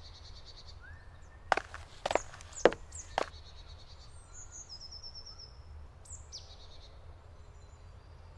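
Forest ambience with small birds chirping and trilling over a steady low rumble. About five sharp knocks come close together between one and a half and three seconds in.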